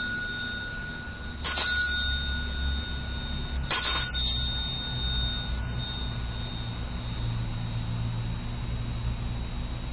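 A small hand-held bell struck twice, about two seconds apart. Each strike gives a clear ring that fades over a few seconds, and the ring of a stroke just before is still dying away at the start.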